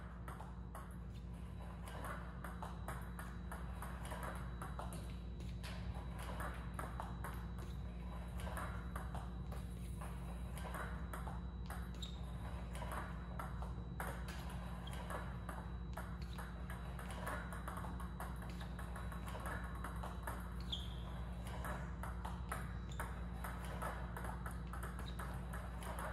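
Table tennis balls clicking repeatedly: a Power Pong robot feeds short backspin serves that bounce on the table and are returned off a paddle, one exchange after another. A steady low hum runs underneath.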